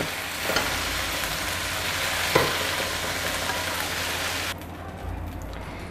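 Boneless chicken pieces sizzling in oil in a non-stick wok as a wooden spatula stirs them, with one knock near the middle. The sizzle cuts off suddenly after about four and a half seconds, leaving only a low hum.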